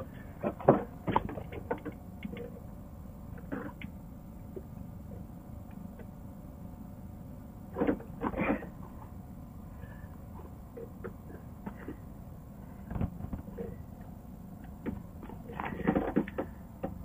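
Scattered scrapes and knocks of hand work as an epoxy-coated mounting block is pressed and worked into place against the inside of a boat's hull, coming in short clusters about a second in, around eight seconds, thirteen seconds and sixteen seconds.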